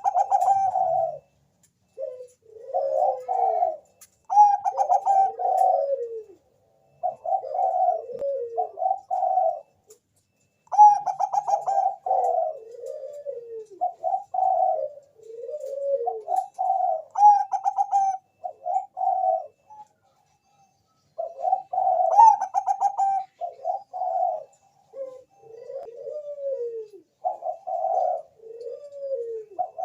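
Zebra dove (perkutut bangkok) cooing in repeated phrases, each a quick stuttering run of notes that rolls into lower, falling coos. The phrases come back to back, with two short pauses.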